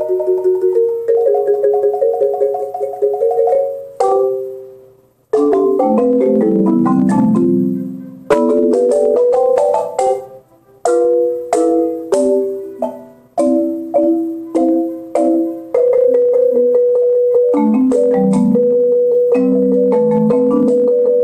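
Marimba played with mallets: rapid rolls and chords, with a few pauses where the notes die away. Near the end a long roll is held on one high note while lower notes move beneath it.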